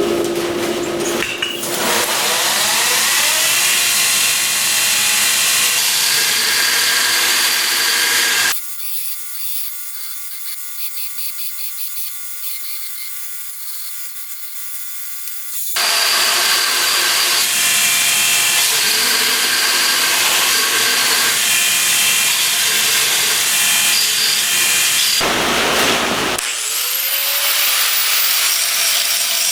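A power tool working on metal burner fittings, in two long runs of harsh noise with a stop of several seconds between them. Near the end it winds up again with a rising whine.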